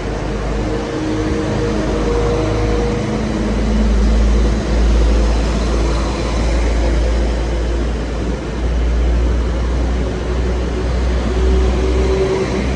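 A train running at a station platform: a steady loud rumble of noise with a few humming tones that shift in pitch.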